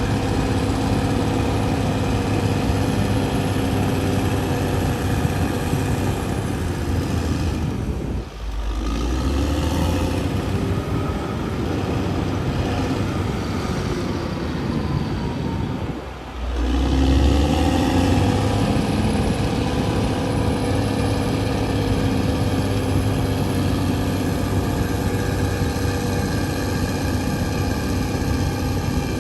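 CAT D6R XL bulldozer's diesel engine running steadily under work. The sound drops out briefly twice, about eight and sixteen seconds in.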